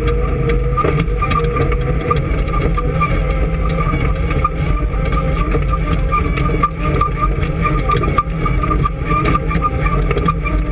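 Off-road race car's engine running steadily, with a constant low drone and a steady high whine, overlaid by frequent rattles and knocks.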